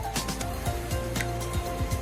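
Background music with a steady beat over held low notes.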